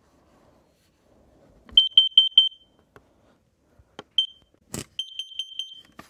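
Kidde carbon monoxide alarm sounding its high-pitched beep signal for carbon monoxide detected. A quick run of four beeps comes a little under two seconds in. After a pause there is a single short beep, a sharp click, and another rapid run of beeps near the end.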